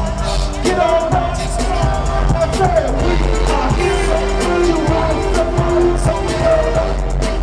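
Live freestyle dance music over concert speakers, with a steady beat and a singer's voice.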